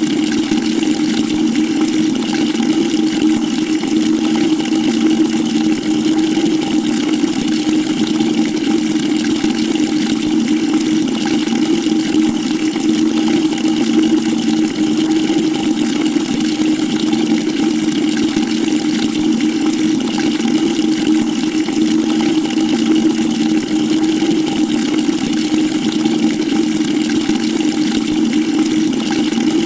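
Water running steadily into a bucket: a constant rushing hiss with a low, even tone beneath it, unchanging throughout.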